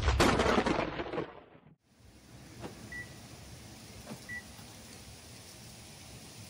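A loud noisy burst, the tail of an intro sound effect, fades out over the first second and a half. After a short gap there is faint outdoor background with two short high beeps about a second and a half apart.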